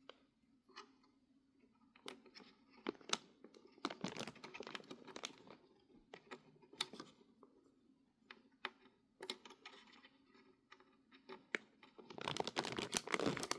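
Small plastic clicks and taps from handling PC parts while the CPU cooler's fan cable is plugged into the motherboard's CPU fan header, with a burst of crinkling, rustling plastic near the end.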